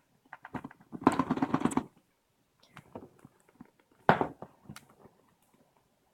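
A product box being opened and its packaging handled: scattered clicks and taps, a rustling scrape lasting about a second near the start, and a sharp knock about four seconds in.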